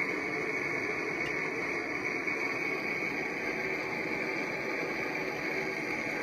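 Handheld soldering torch flame hissing steadily as it heats a copper water-pipe joint for sweat soldering.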